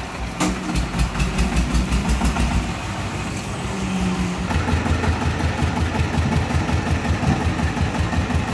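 Single-cylinder diesel engine of a công nông, a Vietnamese homemade three-wheeled farm truck, chugging under way with a rapid, even knock. It gets louder about half a second in, and its low chug strengthens about halfway through.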